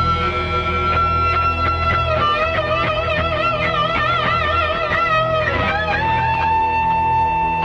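Live band playing an instrumental opening. An electric guitar lead holds a note, then plays a phrase with wide vibrato, and settles on a new long held note about six seconds in, over a steady bass.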